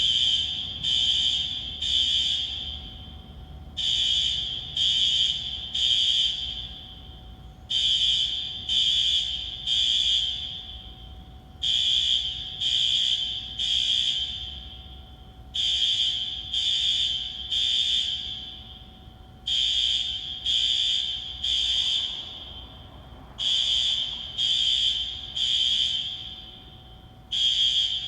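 Alarm sounding high-pitched beeps in groups of three, the groups repeating about every four seconds: the temporal-three evacuation pattern of a smoke or fire alarm.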